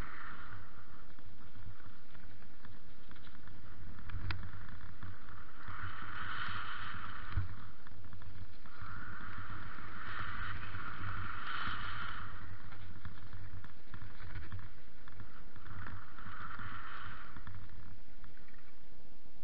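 Wind rushing over a small action camera's microphone as a mountain bike rolls down a dirt trail, with a low rumble and a couple of sharp knocks from the bike. The rushing swells in several surges, three times over the stretch.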